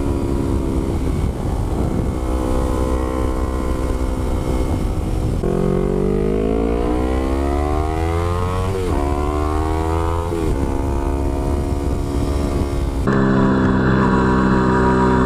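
2015 Yamaha YZF-R3's parallel-twin engine through a DG V2 full exhaust system, running steady, then accelerating with the pitch climbing. The pitch drops back at two upshifts, and the engine settles to a steady pull near the end.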